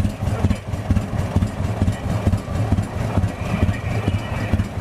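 Engine of an Advance-Rumely OilPull antique tractor running slowly as it drives past, a steady low chugging made of repeated exhaust beats.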